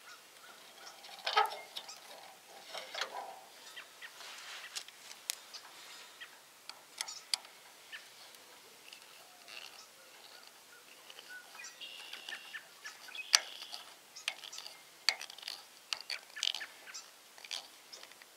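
Scattered small clicks and rustles of trailer-connector wires and a screwdriver being handled, with birds chirping faintly in the background.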